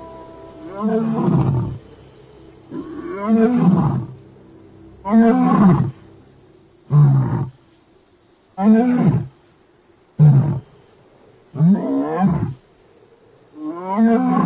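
A male lion roaring: a bout of about eight deep calls, each rising then falling in pitch, roughly one every one and a half to two seconds.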